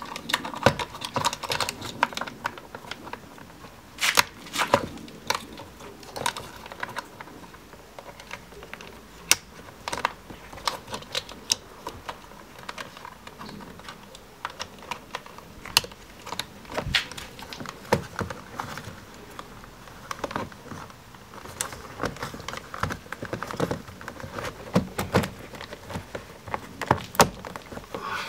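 Irregular sharp plastic clicks and rattles as a BMW E39's door window switch block is handled, its wiring connectors plugged in and the block fitted back into the door trim.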